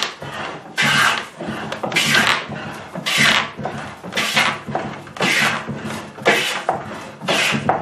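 Restored hand plane shaving a board: about eight hissing strokes, roughly one a second, each starting sharply and fading out. The freshly sharpened blade is set for a heavier, more aggressive cut.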